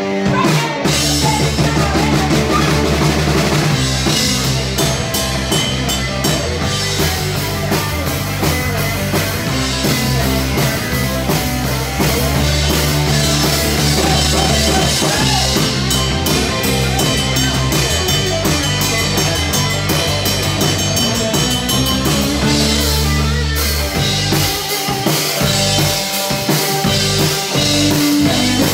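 Live cover band playing an 80s party-rock number: drum kit keeping a steady beat under bass and guitars. The bass thins out for a couple of seconds about three-quarters of the way through.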